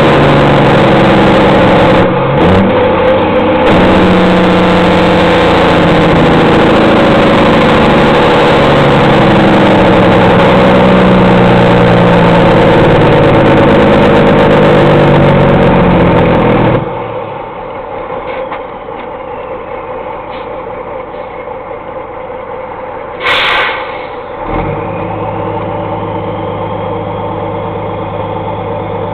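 Straight-piped Peterbilt diesel truck engine running very loud, with a brief dip a couple of seconds in. About 17 s in it drops suddenly to a much quieter steady idle. A short loud hiss and a knock come near the end, and the idle then runs on steadily.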